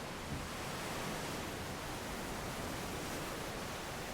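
Steady rushing noise of wind and surf along a rocky ocean shoreline, an even hiss without distinct wave breaks.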